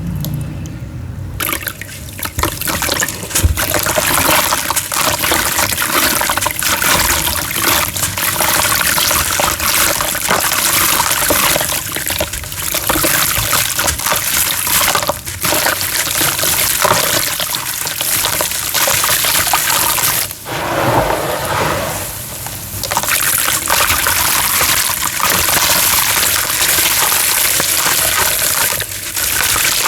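Homemade cement being crushed and crumbled: a loud, dense, continuous gritty crunching full of fine crackles, easing briefly about two-thirds of the way through.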